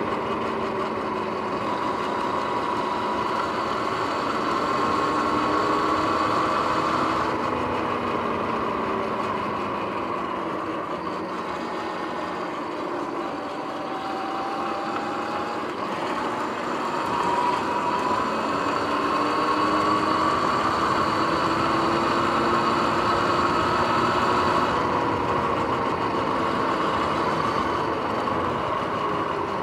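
Sur-Ron X electric dirt bike under way: its motor and drivetrain whine in several tones that rise and fall together as the speed changes, over a steady rushing noise. The bike's bearings are noisy, as the rider calls them.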